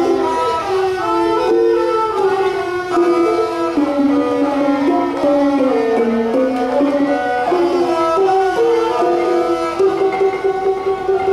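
Thai classical string-and-percussion ensemble playing: a ranat ek xylophone struck with mallets under the bowed melody of Thai saw fiddles, one of them a three-string saw sam sai with a coconut-shell body. The fiddles hold and slide between notes while the xylophone runs quick notes.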